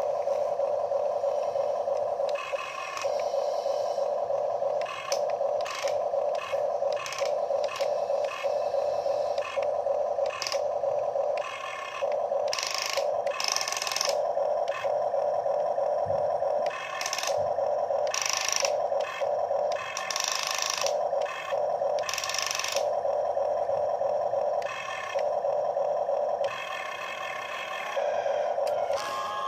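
Huina RC excavator's electric motors and gearboxes whining in short stop-start runs as the arm and turret move, with brief bursts of harsher gear noise now and then.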